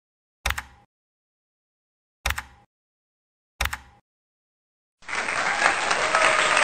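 Three sharp mouse-click sound effects, about half a second, two and a quarter and three and a half seconds in, as the subscribe button and notification bell are pressed. At about five seconds a loud burst of crowd applause and cheering starts and carries on.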